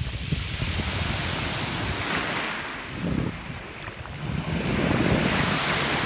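Small sea waves breaking and washing in over a pebble shore, swelling twice, with wind buffeting the microphone.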